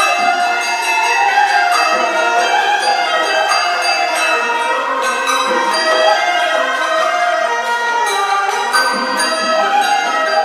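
A traditional Vietnamese instrumental ensemble playing live music for a fan dance. Several melodic instruments play together, with occasional percussion strikes.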